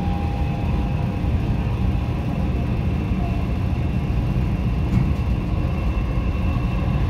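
Inside a moving Dubai Metro train on an elevated track: a steady low rumble with a faint high whine running over it.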